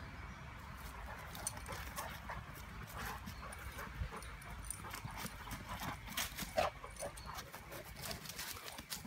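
A Broholmer and a Ridgeback play-fighting on grass: scuffling, paw thuds and short dog noises, the loudest a little after halfway through.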